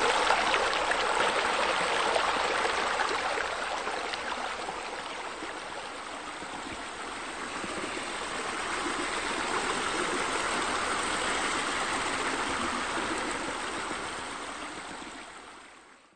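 Running water from a rock waterfall spilling into a pool: a steady splashing that dips about halfway through, swells again, then fades out near the end.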